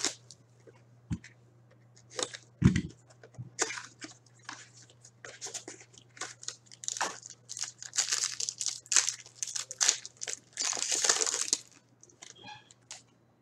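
Plastic wrapping and card packs being torn open and crinkled while a box of 2017-18 SP Game Used hockey cards is opened: a run of crackling rustles, busiest a few seconds before the end, with one thump about three seconds in.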